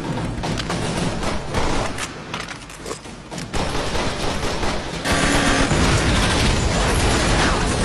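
Film gunfight sound effects: rapid shots and bursts of automatic gunfire, then about five seconds in a louder sustained blast as a car explodes.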